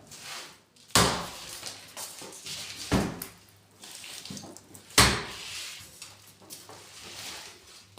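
Three sharp knocks on aluminium kitchen cabinet work, about two seconds apart, each with a brief metallic ring, the last the loudest. Softer rattling and clatter lie between the knocks.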